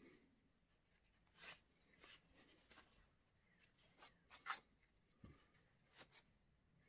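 Faint, intermittent rubbing of tissue paper wiping wet oil paint off a plastic horse figure, a few short soft strokes with the loudest about four and a half seconds in.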